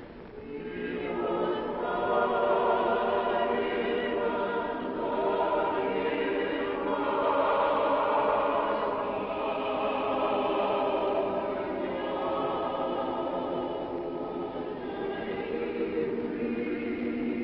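Choral music: a choir singing slow, long-held chords, swelling in over the first couple of seconds.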